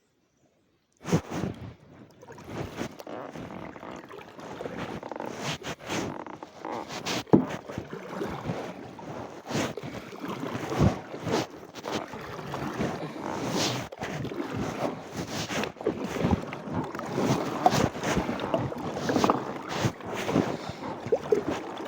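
Kayak paddling: the paddle dipping and splashing through river water, with frequent sharp knocks and clicks, starting about a second in.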